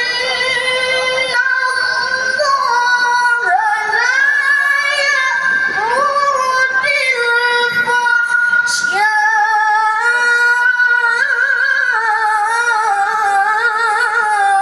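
A female reciter chanting the Quran in melodic tilawah style. She holds long, high, drawn-out notes with wavering melismatic ornaments, with one short breath break about nine seconds in.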